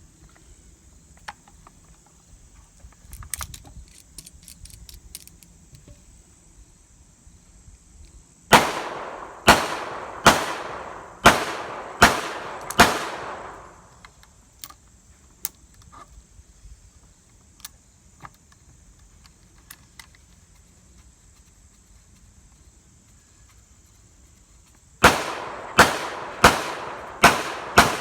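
Smith & Wesson M&P15-22 .22 LR semi-automatic rifle being fired: a string of six shots about two-thirds of a second apart, then after a long pause a second string of four. Each shot is a sharp crack with a short echo tail, and faint ticks are heard between the strings.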